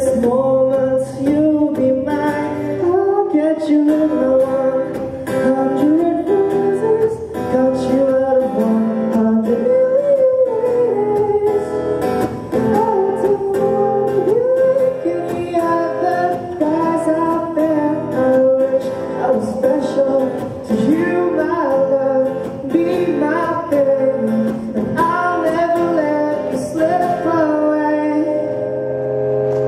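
A man singing into a microphone while playing an acoustic guitar, a slow song performed live.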